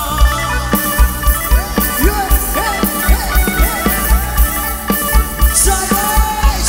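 Live Thai dance band music at full volume: a steady kick-drum beat under a melody line that slides and bends in pitch.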